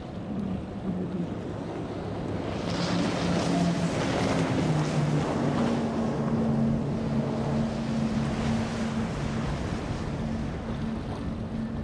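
Six Mercury 450R supercharged V8 outboards on a Cigarette Tirranna running at speed, a steady low drone of engine tones. The rushing hiss of hull spray and wake swells about three seconds in, peaks mid-way and eases off, with some wind on the microphone.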